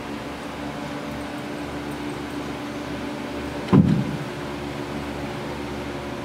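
Electric stall fans humming steadily overhead, with one loud thud a little under four seconds in as a step stool is set down on the aisle floor.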